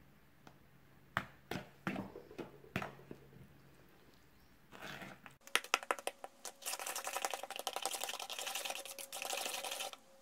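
A spatula scraping and knocking against a plastic mixing bowl while stirring cake batter: a few separate taps in the first seconds, then from about halfway fast, steady clicking and scraping as the chocolate mix is stirred briskly.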